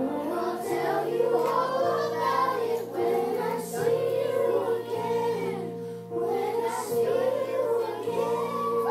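A song with singing over a keyboard-and-bass accompaniment, the bass notes changing every second or two under a steady held tone.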